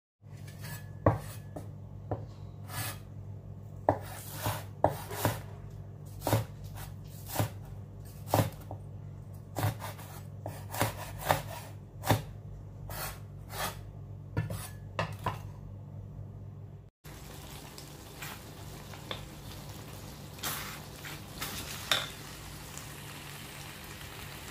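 A cleaver chopping chilies on a wooden cutting board: sharp, irregular knocks over a steady low hum. After a cut about 17 seconds in, pork dinuguan cooking in a wok, with a steady sizzle and a few knocks of a wooden spatula.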